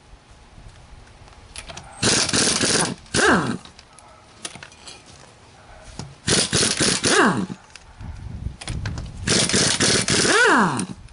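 Handheld power tool run in short bursts of about a second, three times, each ending with its motor whining down in pitch as the trigger is released.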